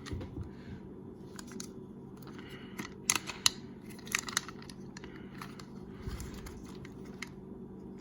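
Small plastic toy pieces and packaging being handled: scattered light clicks and rustling, with a few sharper plastic clicks about three and four seconds in.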